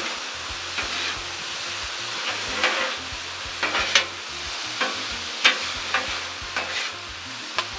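Sauced beef and vegetables sizzling on a Blackstone flat-top griddle while two metal spatulas scrape and clack against the steel plate, tossing the stir-fry, with a sharp clink about every second.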